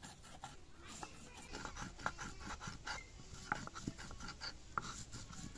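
A stone muller worked over a flat stone grinding slab (sil-batta), grinding whole garam masala spices: faint scraping with many small, irregular clicks.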